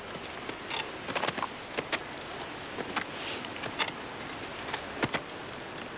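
Steel points of old-fashioned crampons on a leather boot kicking and scraping against glacier ice: a run of sharp, irregular clicks and taps with a brief scrape a little after three seconds in.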